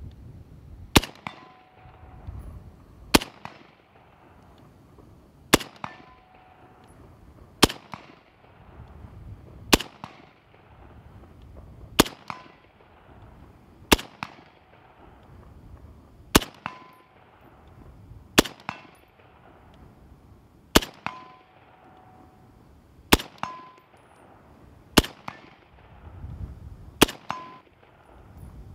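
Slow, single aimed shots from a .308 (7.62×51 NATO) semi-automatic rifle, about one every two seconds, thirteen in all. Each shot is followed a moment later by the ringing clang of a steel target being hit.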